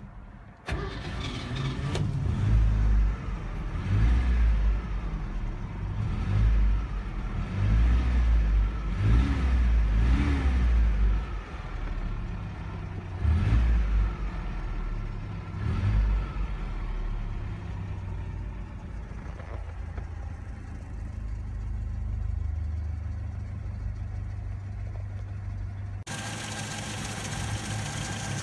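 1969 Datsun 1300 pickup's four-cylinder engine starting about a second in. It is revved in a run of throttle blips that rise and fall, then settles to a steady idle, heard from inside the cab. Near the end the sound switches to the open engine bay, sounding brighter.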